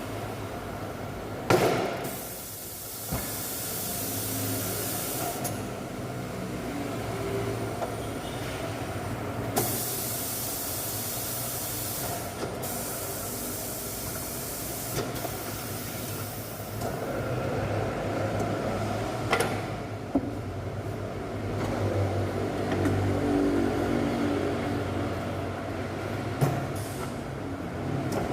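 Hesbon pneumatic tyre-changer machine at work: compressed air hissing in several long bursts over a steady low motor hum, with a few sharp metallic knocks.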